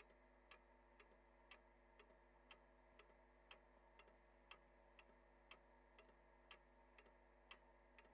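Faint clock ticking, about two ticks a second, with every other tick louder in a steady tick-tock.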